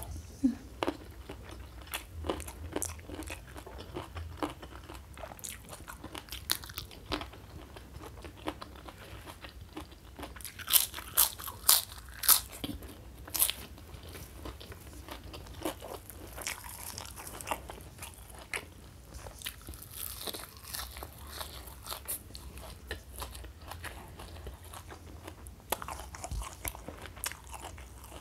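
Close-miked eating: chewing and crunching with many small mouth clicks throughout. About eleven to thirteen seconds in comes a run of loud, crisp crunches as a prawn cracker is bitten.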